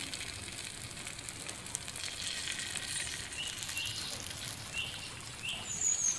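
Patrode dosa (masala-coated colocasia-leaf roll slices) frying in oil on a hot dosa griddle, a steady sizzle. A bird chirps several times from about three seconds in, with a higher whistle near the end.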